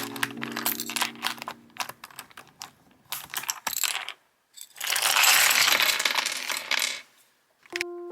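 Typing on the YUNZII B68 plastic-cased mechanical keyboard: scattered clacking keystrokes, then a dense run of fast typing from about five to seven seconds in. Background music fades out over the first two seconds.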